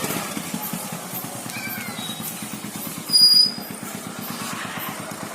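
Motorcycle engine running at a steady pace, its exhaust pulsing evenly. A brief, loud, high-pitched sound cuts in about three seconds in.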